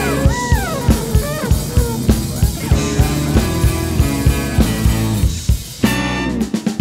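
Live band playing: a baritone saxophone solo in sliding, falling phrases over bass, drums and percussion, with a short full-band hit near the end.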